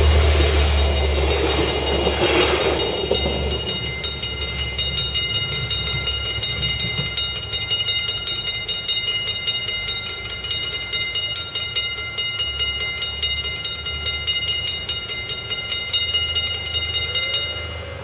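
Railway level-crossing bell ringing in an even rhythm of about three strokes a second, while a passing train's rumble fades out over the first few seconds. The bell stops shortly before the end.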